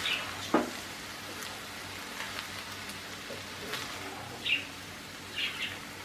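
Spatula stirring and tossing boiled rice with chicken and vegetables in a non-stick frying pan, over a steady faint sizzle, with a knock against the pan about half a second in and a few short scrapes later.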